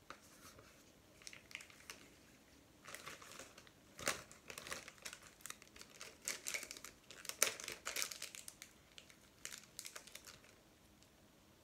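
Plastic plasticine packaging crinkling in irregular crackling bursts as a piece is taken out, with a few sharper crackles around four and seven seconds in; it stops about ten seconds in.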